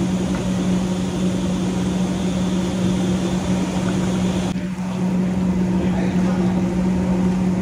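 Steady mechanical drone with a constant low hum from the commercial kitchen's gas burners and ventilation running under a large stockpot. It dips briefly about four and a half seconds in.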